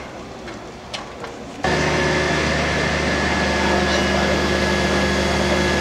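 Fire brigade aerial ladder truck's engine and hydraulic drive running to move the ladder: a loud, steady mechanical drone with a fixed hum that starts abruptly about a second and a half in, after faint voices.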